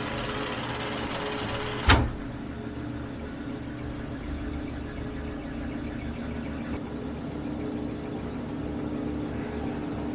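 Metal lathe running steadily while turning down a steel axle shaft, with the hiss of the cutting tool on the steel and a steady hum. A single sharp clack about two seconds in.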